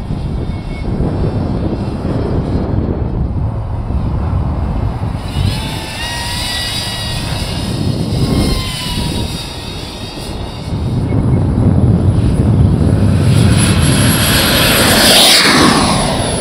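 3D-printed radio-controlled model of the Ligeti Stratos flying overhead, its motor and propeller whine gliding up and down in pitch as it passes. The loudest pass comes near the end, a sharp rise and fall in pitch.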